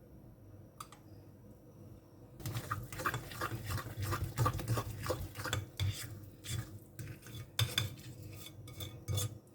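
Utensil stirring and knocking against a mixing bowl, starting about two and a half seconds in as a run of quick, uneven strokes, after a single light click near the start.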